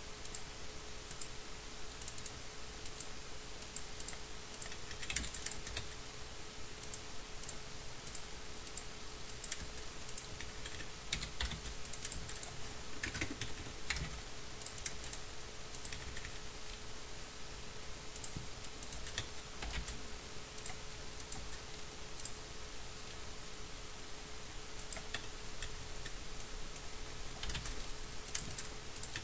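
Computer keyboard keystrokes, scattered and irregular, over a faint steady hum and hiss.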